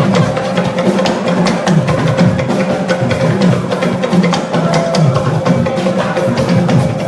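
Instrumental church music with drums and fast, busy hand percussion over a moving bass line and one steady held note, without singing.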